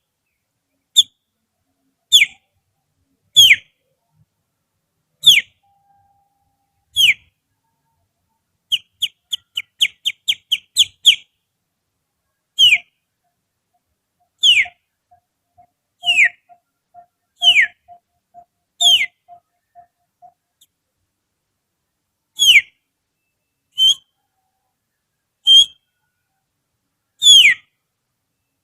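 Finger whistling imitating the song of a kutilang sutra: short, sharp whistles that slide down in pitch, one every second or two, with a quick run of about nine short chirps partway through.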